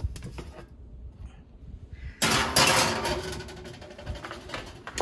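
Oven door opening and a metal sheet pan sliding onto the oven rack: a sudden scraping rush about two seconds in that fades over the next couple of seconds, with light knocks before it and a sharp knock near the end.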